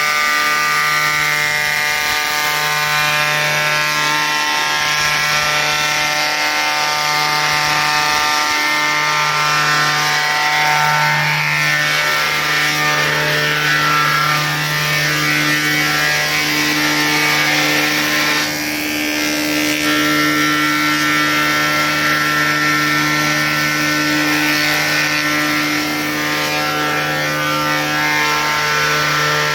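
Wadkin six-head planer/moulder running steadily as its cutter heads machine recycled rimu boards into flooring: a loud, continuous machine whine with several steady tones. The level dips briefly about two-thirds of the way through.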